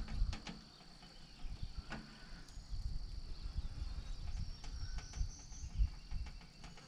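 A steady high insect trill in the background, with scattered light clicks and low knocks from hands fitting a stainless steel cable and wire-rope clamp to a submersible well pump's eyelet.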